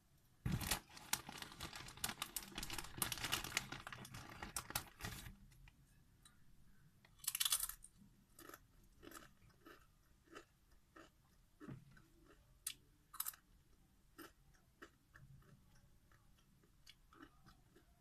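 Close-miked crunching of Doritos tortilla chips being bitten and chewed, dense for about five seconds. Then comes a short, loud burst of noise, followed by slower, softer chewing clicks.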